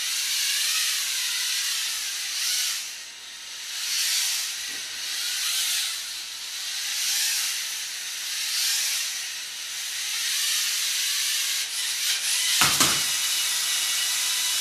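Whirring hiss of LEGO NXT servo motors and gears driving two two-wheeled balancing robots across a wooden floor, swelling and fading every second or two with a faint wavering whine. A single knock comes near the end.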